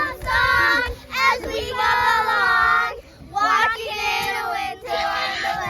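A child's voice singing in sustained, sliding phrases, with short breaks about one and three seconds in.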